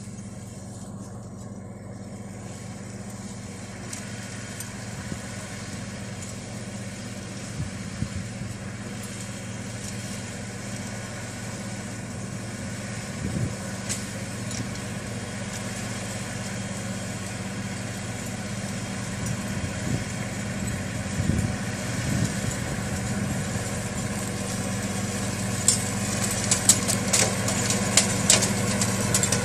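Kubota GL338 Grandel tractor's diesel engine running steadily at working speed, slowly getting louder as it approaches. In the last few seconds sharp crackling and snapping of vegetation being cut by its mower rides over the engine.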